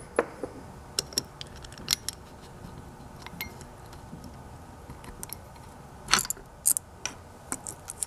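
Small metal parts of an antique repulsion-start induction motor's start mechanism clinking and clicking as they are handled and slid off the rotor shaft. Scattered light clicks, with a few louder clinks about six to seven seconds in.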